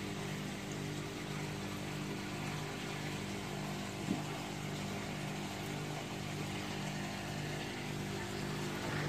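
Steady hum of a pump running, with water churning and bubbling in a plastic tub. A brief knock about four seconds in.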